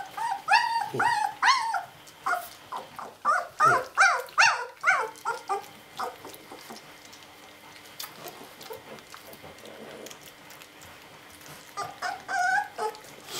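Young puppies whimpering and squealing in short, high-pitched, wavering cries, many in quick succession over the first five seconds and again near the end, with a quieter stretch in between.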